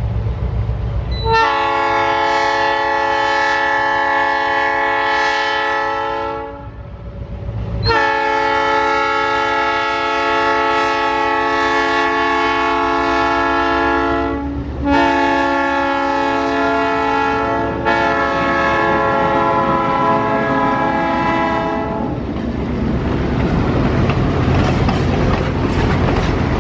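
Diesel locomotive's air horn sounding the grade-crossing signal: two long blasts, a short one and a final long one. After it, the passenger cars roll past with a steady rumble and wheel clatter.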